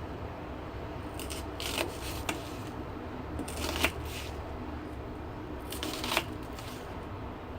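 Kitchen knife slicing a raw onion: several short, crisp cuts in three or four groups a second or two apart.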